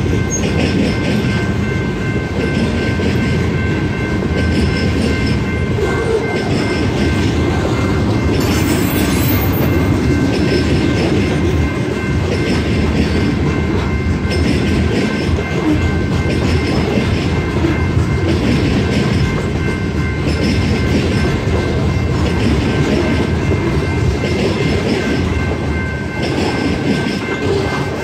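Loaded freight train cars, boxcars then covered hoppers, rolling steadily through a grade crossing with a loud, continuous rumble. Over it the crossing's General Signals electronic bell rings in a steady repeating pattern.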